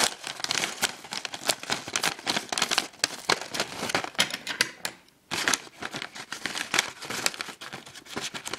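Small scissors snipping through a paper envelope and plastic wrapping, mixed with paper and plastic crinkling as the package is handled. A short pause comes about five seconds in.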